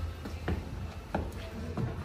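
Short knocks at an even pace, about one and a half a second, over a steady low hum, with faint music behind.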